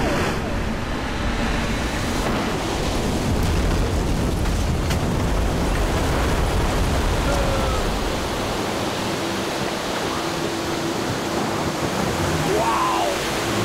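Rushing roar of water and ice as the surge from a calving glacier collapse crashes over a small boat, with heavy buffeting on the microphone. The deep rumble thins out about eight seconds in, and a steady hum comes in under the rushing water.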